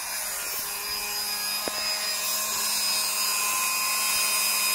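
Electric die grinder running steadily with a small rotary burr, grinding the old weld off a titanium bicycle frame's dropout. The old weld is stainless filler that never fused with the titanium, and it is being cut back to clean metal before re-welding.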